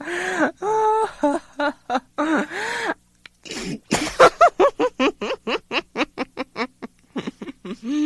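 A woman laughing hysterically: a few long, drawn-out pitched whoops, a short pause and a sharp breath about four seconds in, then a fast run of short ha-ha bursts, about six a second.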